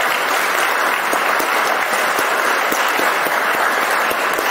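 Audience applauding: a steady clapping of many hands.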